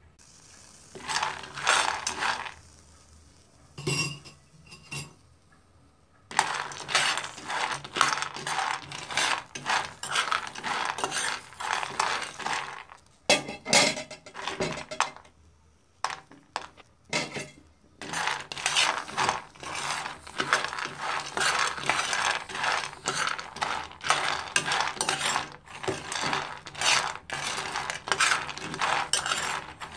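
Roasted peanuts rattling against a metal pan as they are moved around: dense runs of small clicks in stretches, broken by short pauses.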